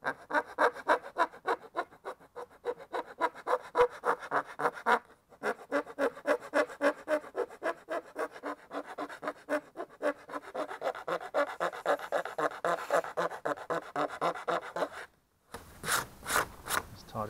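Hand saw cutting through a hard plastic car trim panel: rasping back-and-forth strokes at about three a second, with a brief pause about five seconds in, stopping a couple of seconds before the end.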